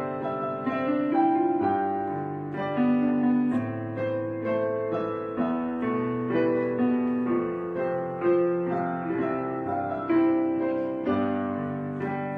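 Slow background piano music, with a new note or chord struck about every second and a half over the ringing of the last.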